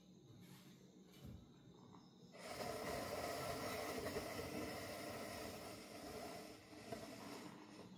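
A rooster crowing once: one long, rather rough call of about five seconds that starts a little over two seconds in.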